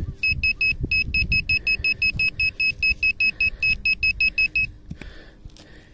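Handheld GP-Pointer pinpointer beeping rapidly, about five short high beeps a second, as its tip is worked through a soil clod: its alarm for a metal target close to the tip. The beeping stops suddenly near the end, under a low rustle of soil being broken up.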